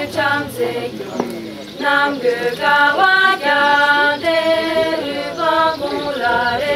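A group of women singing together in unison, a cappella, in long held notes that step from pitch to pitch, with a short break about a second in.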